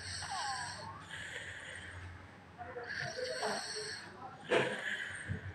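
A child snoring in sleep: two long, noisy breaths about three seconds apart, then a short, louder sound about four and a half seconds in.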